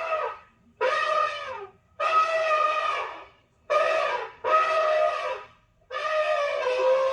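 Woolly mammoth sound effect: a run of horn-like trumpeting calls, each about a second long and separated by short gaps, some dipping in pitch at the end.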